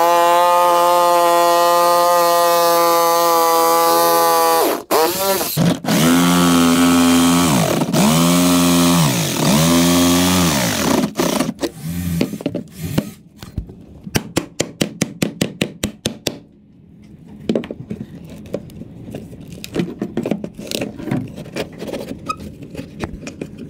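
Bosch corded jigsaw cutting through wooden floorboards: a steady, high motor whine at first, then the pitch sags and recovers several times as the blade bogs down in the cut. The saw stops about eleven seconds in, giving way to quieter quick clicks and knocks as the cut-out pieces of floorboard are worked loose.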